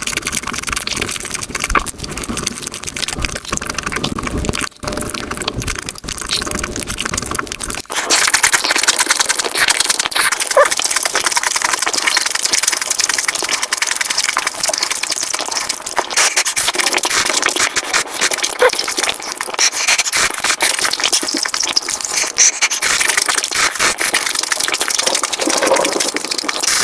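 Close-miked eating sounds played back at high speed: rapid chewing and crunching clicks. About eight seconds in they cut to a brighter, denser crackling with less low end.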